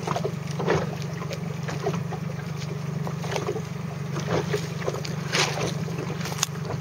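A small motorboat's engine running at steady low revs, with water splashing against the hull about once a second.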